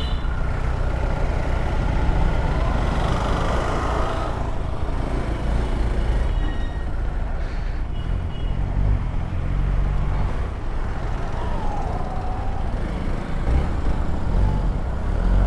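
Vehicle engine running at low speed, steady throughout, with the revs rising near the end.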